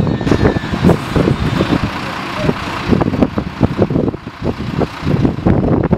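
Aircraft engines running on the ground under heavy, gusty wind buffeting on the microphone, which makes the loudest uneven rumble. A high turbine whine fades out about two seconds in.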